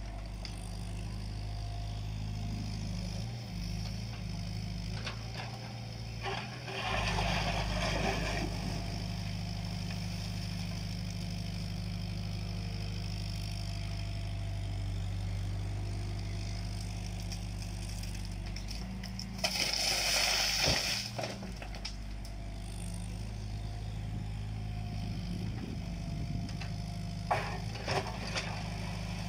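JCB 8050 mini excavator's diesel engine running steadily under hydraulic work as the machine dumps, swings and digs. Louder rushing noise swells twice, about seven and twenty seconds in, and a few sharp knocks come near the end.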